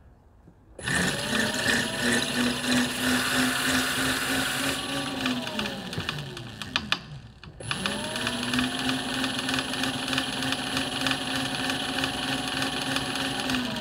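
Burromax TT350 electric mini bike's 500-watt motor spinning the rear wheel through its chain drive, a steady whine with chain noise and a hiss of aerosol chain lube being sprayed on the dry chain. It spins up about a second in, winds down with falling pitch around five seconds, and spins up again a couple of seconds later before winding down near the end.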